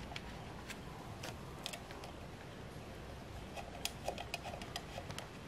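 Light clicks and taps of a small bracket being handled and set against a metal stand frame, scattered at first and a quick cluster of them about four seconds in, over faint room noise.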